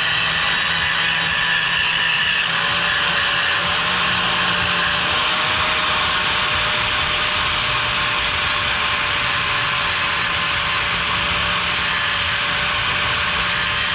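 Steady, dense crackling and rattling of metalwork in a workshop, with no break or change.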